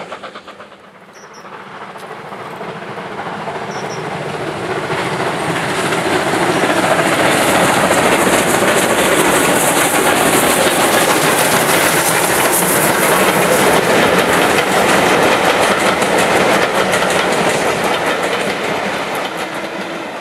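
Two steam locomotives, BR Standard Class 8 No. 71000 Duke of Gloucester and Ivatt Class 2 No. 46443, double-heading a passenger train past, with the coaches' wheels clattering over the rail joints. The sound builds from about a second in to a peak in the middle and fades near the end.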